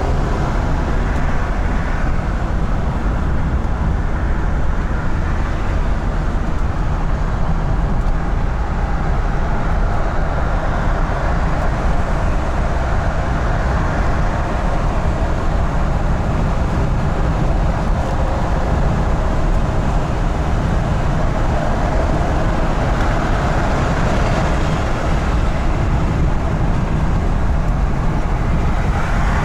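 Ford E350 van with its 5.4 Triton V8 driving at steady highway cruising speed: an even mix of engine drone and road and tyre noise, with a strong low rumble.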